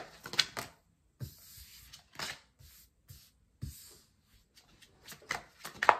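Tarot cards being shuffled and dealt onto a desk: a string of short card clicks and slaps, bunched near the start and again near the end.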